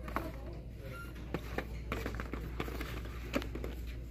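Boxed action figures, cardboard and plastic packages hanging on store peg hooks, clacking and rustling as a hand flips through them: a string of irregular light clicks over a steady low hum.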